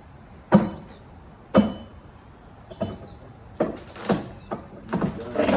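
A series of sharp knocks and bangs from demolition work on wooden framing, about seven irregular impacts with the first two the loudest.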